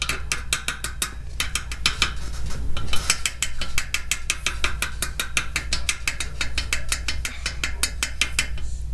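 Rapid ratchet-like mechanical clicking, many clicks a second, with two brief pauses in the first three seconds.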